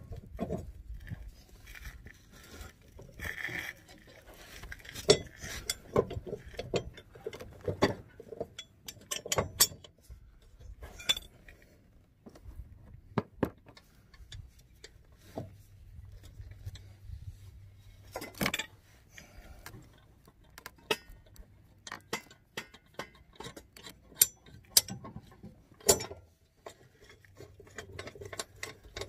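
Irregular metallic clinks and clanks of hand tools and mower blade hardware being handled and set down while the blades are changed on a zero-turn mower.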